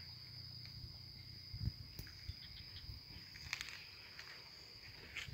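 Insects droning with a steady, high-pitched whine, over a faint low rumble, with a couple of soft knocks.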